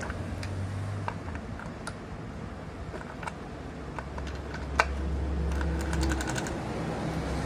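Small metal clicks and clinks of gearbox shafts and gears being slid and seated into a Honda EX5 engine's crankcase half by hand, with one sharper clink about five seconds in and a quick run of light ticks just after. A low steady hum runs underneath.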